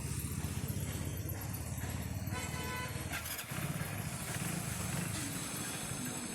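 Hero Splendor's single-cylinder engine running steadily with a pulsing low rumble. A brief light rattle comes a little over three seconds in.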